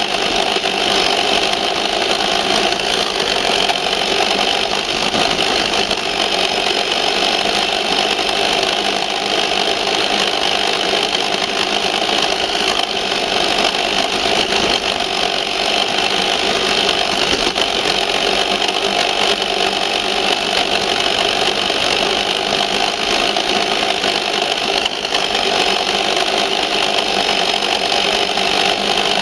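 Tamiya Ford F350 RC truck's electric motor and gearbox whining steadily under way, with the plastic body rattling and tyres crunching over wet gravel, picked up by a camera mounted on the truck itself.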